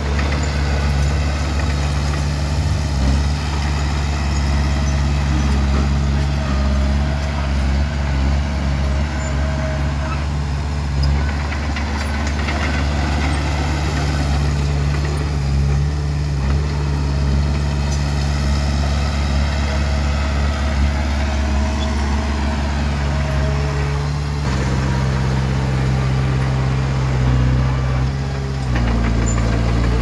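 Bulldozer's diesel engine running steadily at work, its note shifting about three-quarters of the way through and again near the end.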